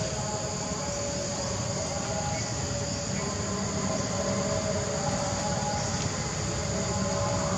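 Steady outdoor ambience: a continuous insect chorus with a low rumble underneath, unchanging and without distinct events.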